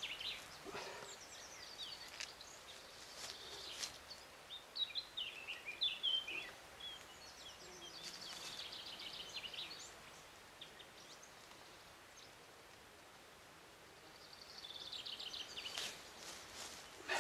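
Small songbirds singing: short repeated trills and chirps that come and go, with a quieter lull past the middle.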